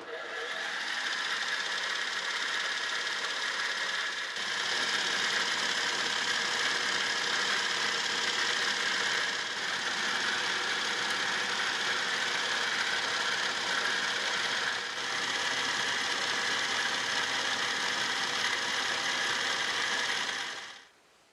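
1988 Makino KSJP-55 ram-type knee milling machine running under power: a steady mechanical whir with several fixed gear whines. It switches on with a click at the start, steps slightly louder about four seconds in, and runs down and stops near the end.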